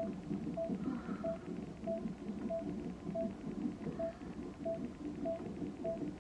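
Bedside hospital monitor beeping steadily, one short electronic tone about every 0.6 s, over a low, uneven rumble.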